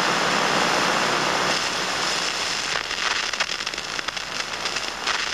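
Stylus riding the groove of a spinning vinyl record: steady surface hiss, with crackles and pops starting a little before halfway through.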